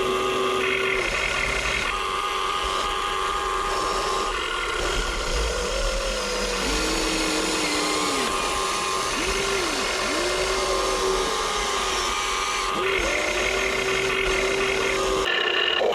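Whine of a Huina 1580 RC excavator's small electric gear motors. Steady tones cut in and out every second or two, and other tones glide up and down as the motors speed up and slow under changing load.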